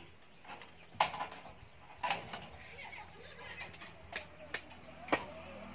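A few sharp knocks and clinks from roof-tying work, as steel wire is pulled and tied around the edge of a corrugated metal roof. The loudest comes about a second in, and the others are spread out singly over the following seconds.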